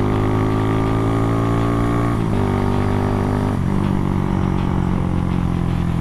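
Tuned Honda CB single-cylinder four-stroke motorcycle engine with a 65 mm piston, running under way at fairly steady revs. Its note drops a step about two seconds in and again about a second later.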